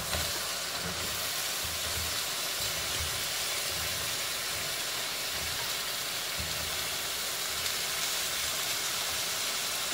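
Vegetables sizzling in a hot wok of sauce as they are tipped in: a steady, even hiss.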